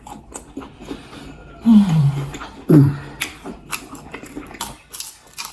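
Close-miked eating sounds: wet chewing and lip-smacking clicks, with two short falling vocal sounds about two and three seconds in.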